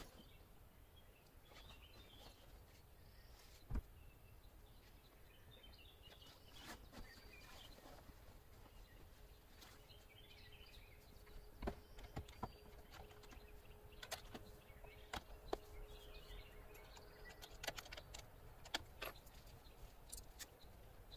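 Near silence with faint bird calls, and a few light knocks and clicks as the Alu-Cab pop-up roof tent is pushed down and closed.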